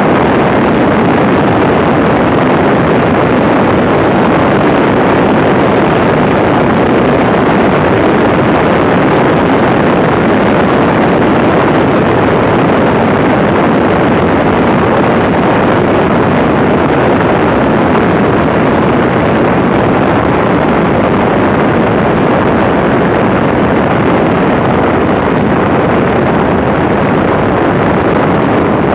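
Zenith STOL light aircraft in low flight: a steady, loud rush of wind and engine-propeller noise, buffeting a camera mounted under the wing. The level holds even throughout.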